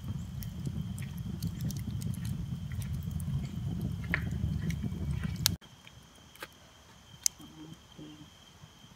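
Wood campfire burning, crackling with sharp pops over a low rumble; it cuts off abruptly about five and a half seconds in, leaving a much quieter stretch with a few faint clicks.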